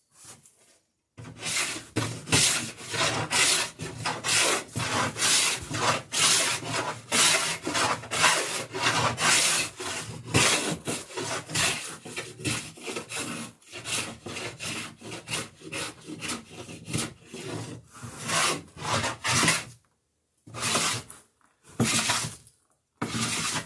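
Hand plane cutting a bevel along the edge of a plywood garboard plank, in quick, even strokes about two a second. The strokes start about a second in, stop near the end, then a few more follow.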